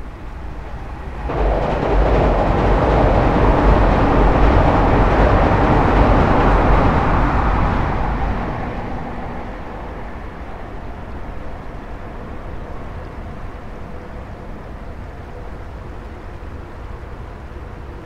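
A Tokyu Den-en-toshi Line train crossing a steel truss railway bridge. Its noise starts suddenly about a second in, stays loud for about seven seconds, then dies away to the steady sound of the river flowing below.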